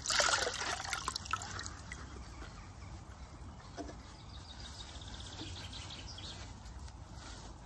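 Water splashing and trickling in a bucket as a large grouting sponge is rinsed and wrung out, dying away after about two seconds.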